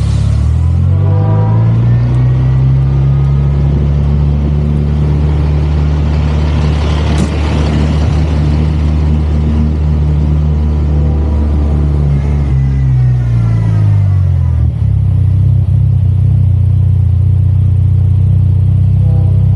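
Kenworth C500's Cummins ISX diesel engine revving up about a second in and held at high revs for roughly ten seconds, working hard under load during a pull test. It then winds back down to idle near the end.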